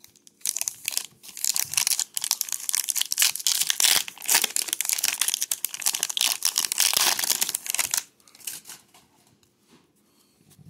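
Trading card pack wrapper crinkling and tearing as it is opened by hand. The dense crackling stops about 8 seconds in.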